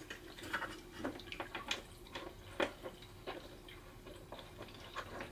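Hands working the mount hardware on the side of a sonar shuttle case: faint, irregular small clicks and light scraping, over a faint steady hum.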